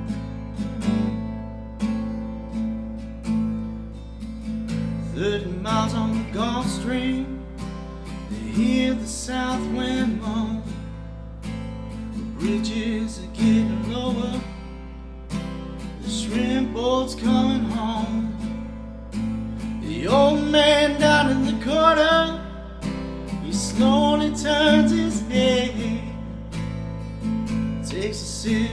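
Acoustic guitar strummed in a steady rhythm, with a man singing over it from about five seconds in.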